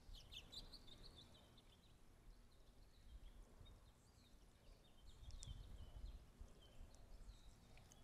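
Faint birds chirping in short high calls over quiet outdoor background noise, with a low rumble swelling about five seconds in.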